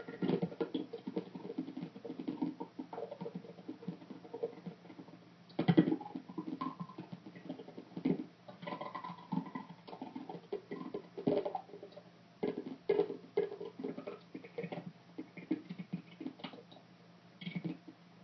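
Irregular tapping, clicking and scratching noises from an unidentified source in a house, coming in uneven clusters, with one sharper, louder knock about six seconds in.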